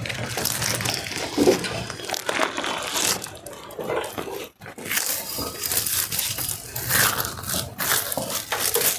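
Clear plastic bag around a small glass aquarium crinkling and rustling in irregular bursts as the tank is pulled out of its cardboard box and handled.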